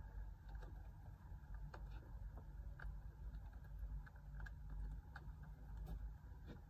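Hens settling on a roost for the night: faint, scattered small clicks and rustles over a low steady hum.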